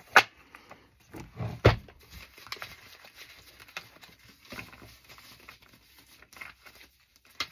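Paper index cards being handled: two sharp knocks in the first two seconds, then faint rustling and light clicks of cards.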